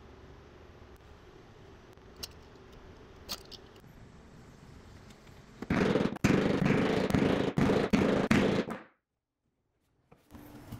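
Mallet driving a leather stitching chisel through glued layers of leather to punch stitch holes: a rapid run of loud, sharp knocks lasting about three seconds, a little past the middle, cutting off suddenly. Before it there are only a couple of light clicks.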